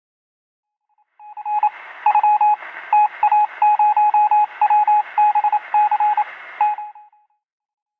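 Morse-code-style beeping: a single tone keyed on and off in quick short and longer beeps over a hiss of radio static. It starts about a second in and stops about a second before the end.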